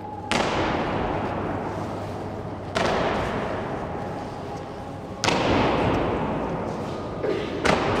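Honour guard's boots stamping in unison on a stone floor in a slow ceremonial goose step, one stamp about every two and a half seconds, with a weaker and a strong stamp close together near the end. Each stamp echoes long in the large round stone hall.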